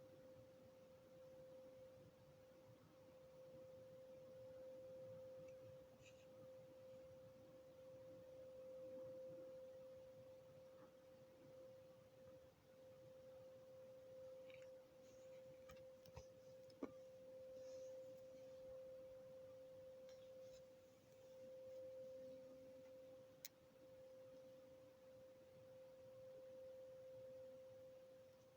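Faint, steady drone holding one mid-pitched note without a break, over a low rumble, with a few faint clicks. It is an unidentified distant noise that the listener takes for something industrial.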